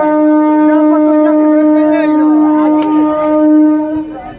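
One long, steady horn note, held for about four seconds and then cut off.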